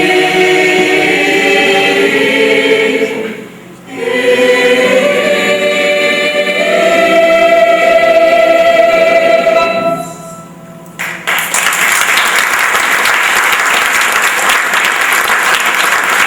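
Several voices singing the final long-held notes of a stage musical's ballad in harmony. About eleven seconds in the singing ends and an audience applauds.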